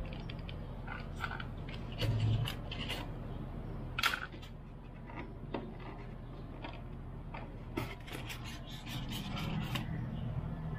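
Hands rubbing and scraping against a styrofoam shipping box and its plastic wrap while lifting out propellers mounted on card squares: scattered light clicks and scrapes, with a dull knock about 2 seconds in and a sharper click about 4 seconds in.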